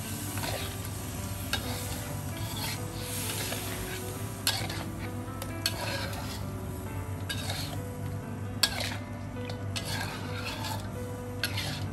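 Spatula stirring and scraping pieces of meat in red curry paste around a metal wok, with a light sizzle of frying underneath. Repeated scrapes and a few sharp clinks of the spatula against the wok, the sharpest about eight and a half seconds in.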